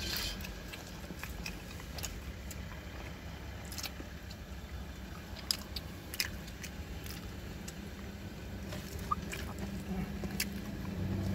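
Popcorn chicken being chewed and bitten, with scattered short crunches and clicks, over a steady low hum inside the car.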